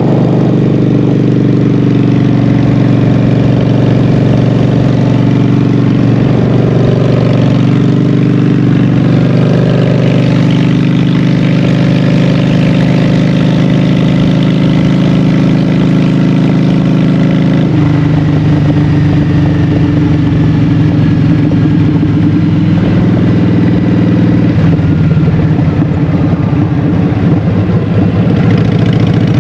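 Honda Shadow 750's V-twin engine running through Vance & Hines Short Shots exhaust pipes while riding, a steady deep exhaust note. About eighteen seconds in the note changes abruptly, and it shifts again a few seconds later.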